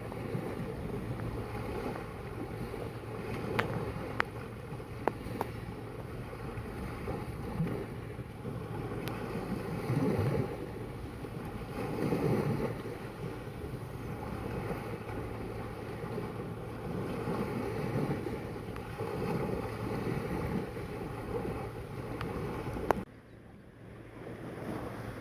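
Sea waves washing in, with wind buffeting the microphone and swelling louder a couple of times, and a few sharp clicks. Near the end the sound drops suddenly after a click.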